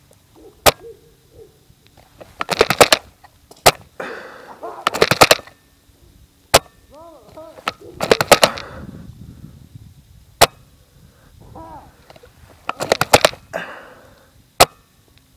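Airsoft guns firing: single sharp shots every three to four seconds, alternating with four short bursts of rapid shots.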